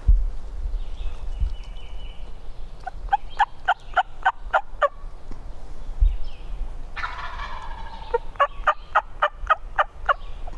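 Turkey yelping: two runs of about eight quick yelps, roughly four a second, with a longer call of about a second between them. Low thumps come at the start and about six seconds in.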